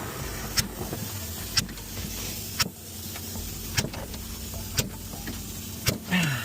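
Steady hum of an idling vehicle engine, with a sharp tick about once a second.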